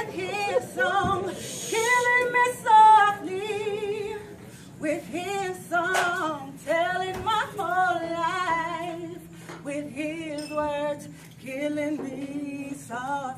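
A woman singing at a live open mic, in phrases with held, wavering notes, over a low steady hum.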